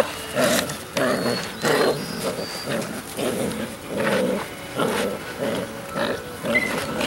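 Two five-week-old puppies growling in short bursts, about one to two a second, as they bite and tug on a puppy tug in their first bitework.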